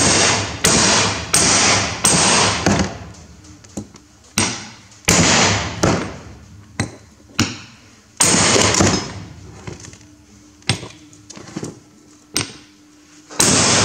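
A hammer strikes a flat steel disc resting on a new leather-and-rubber rear axle seal, driving the seal into a Massey Ferguson 135 axle housing. About a dozen sharp metallic blows are heard, each ringing out briefly, in short runs with brief pauses between.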